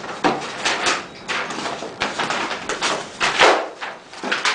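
Books and sheets of paper being handled in a hurry on a desk: a quick, irregular run of rustling, flapping swishes as pages are flipped and books and a folder are shoved about.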